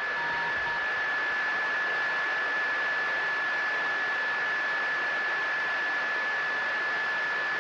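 Steady radio static hiss with one constant high-pitched tone running through it, as on an open communications channel.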